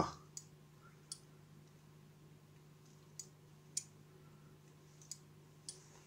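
Faint, irregular small plastic clicks, about six in all, from the VW Golf 5 tailgate handle-and-button assembly being turned and handled.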